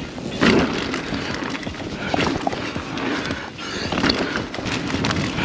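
Rocky Mountain Instinct A10 full-suspension mountain bike riding a rough dirt trail: tyre and trail noise with repeated clattering knocks as the bike rattles over bumps, and a hard knock about half a second in.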